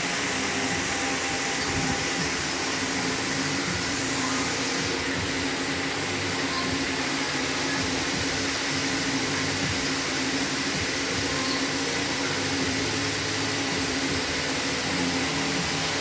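Single-jersey circular knitting machine running at a steady speed: a continuous mechanical whir and hiss with a faint steady hum under it.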